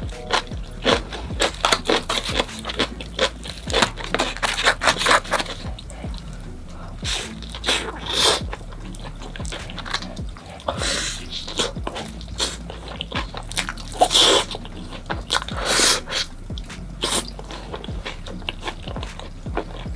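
A person biting into and chewing a slice of cheese-crust pizza: a quick, uneven run of crunches and clicks from the crust, with a few louder bites spread through.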